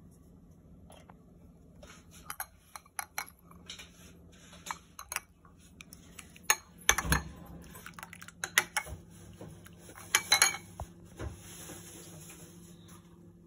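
Spoon clinking and tapping against a ceramic soup bowl as the soup is stirred and scooped: scattered light clinks in small groups, the loudest about seven and ten seconds in.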